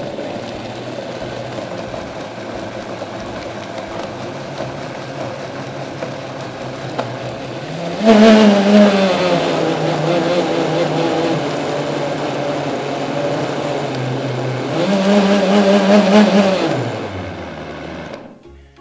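High-power countertop blender running on a liquid chicken marinade, a steady motor hum. About eight seconds in it jumps louder and higher, then sinks back as the blades take the load. It speeds up again around fifteen seconds, then winds down as it is switched off near the end.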